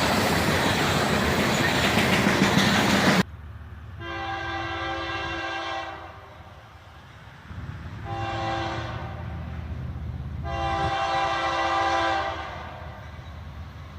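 Freight cars rolling past close by with a loud steady rumble and rattle, cut off suddenly about three seconds in. Then a diesel locomotive's multi-chime air horn sounds three blasts, the middle one shorter, over the low rumble of the approaching train.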